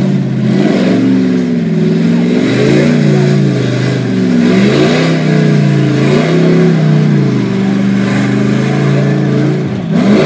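Lifted pickup truck on oversized mud tires revving hard as it churns through a mud pit, the engine pitch rising and falling over and over as the throttle is worked.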